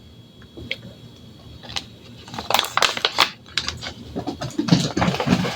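Scattered clicks, knocks and scrapes of kitchen utensils and containers being handled while making a batter, busiest about halfway through and again near the end.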